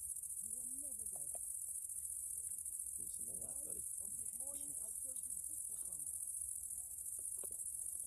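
Crickets trilling: a steady, high, finely pulsing buzz that never breaks, with faint low voices underneath.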